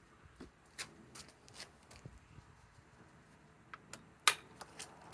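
Light handling of tools and hardware: scattered small clicks and rubbing, with one sharper click about four seconds in.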